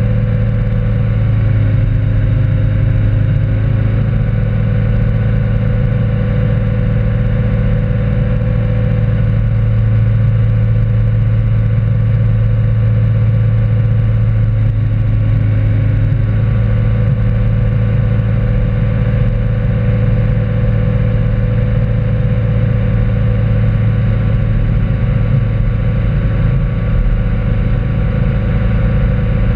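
Tow boat's engine running steadily at speed, a loud, even drone that holds the same pitch throughout.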